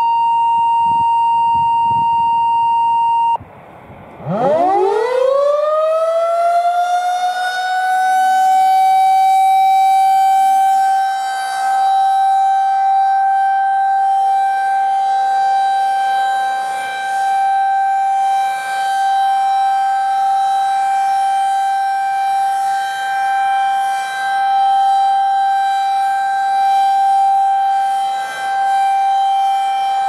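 A steady electronic tone cuts off about three seconds in. Then a Federal Signal 2001-SRN rotating electromechanical siren winds up, its pitch rising over about four seconds. It holds a steady single tone for its monthly tornado-siren test, swelling and fading as the horn rotates.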